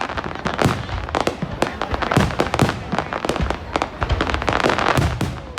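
Aerial fireworks going off in rapid succession: many sharp bangs and deeper booms a second, overlapping into a continuous barrage.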